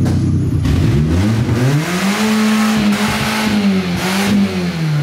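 Hyundai Accent's four-cylinder engine revving: after a brief low rumble, the pitch climbs over about a second, holds high for a couple of seconds with a short dip, then drops near the end.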